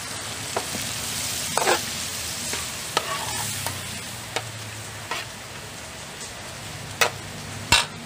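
A metal spatula scrapes and clanks against a stainless-steel wok while pork belly sizzles in the hot liquid in the pan. The spatula strikes come about eight times, the two loudest near the end.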